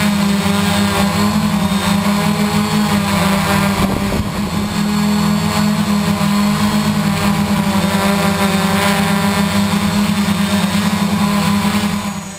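Gaui 500X quadcopter's electric motors and propellers in flight, heard close up from the onboard camera: a loud, steady buzzing hum that drops away near the end.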